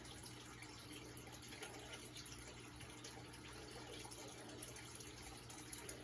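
Near silence: faint room tone with a low steady hum and a few soft ticks.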